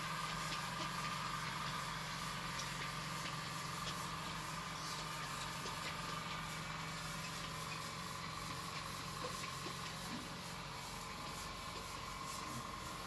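Steady low hum with a hiss over it, with faint rubbing as a hand wipes marker off a whiteboard.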